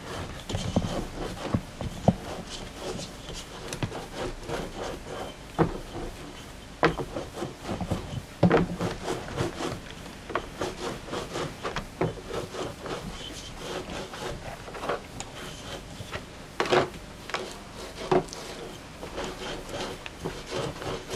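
Hands rubbing and shuffling things about on a wooden worktable, with a few sharp knocks and taps scattered through.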